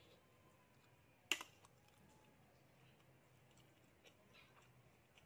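Near silence, broken once about a second in by a single sharp click of a metal fork against the plate, with a few faint ticks after it.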